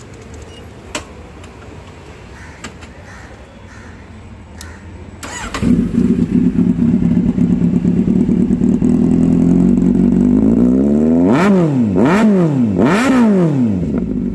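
Kawasaki Z800's inline-four engine with an SC Project slip-on exhaust, started on the electric starter about five seconds in, then idling steadily. Near the end it is revved three times in quick blips, each dropping back to idle.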